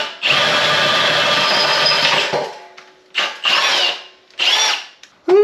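Cordless drill boring into the stainless steel wall of a beer keg: one steady run of about two seconds, then three short bursts in which the bit squeals against the steel. A short pitched tone starts just before the end.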